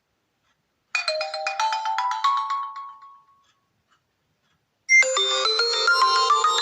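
HTC One M8 ringtones: a short chiming phrase of notes stepping upward begins about a second in and fades away. After a pause, a louder, busier chiming melody starts suddenly near the end.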